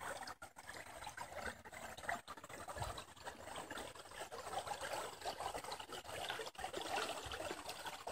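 Shallow river water trickling over stones at the edge of the shore ice, a steady busy patter of small splashes, with a brief low thump about three seconds in.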